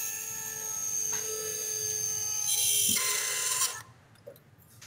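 Surgical power drill running in the robotic arm's guide at a thoracic vertebra: a steady motor whine that shifts pitch slightly a couple of times as it loads. It cuts off suddenly about a second before the end.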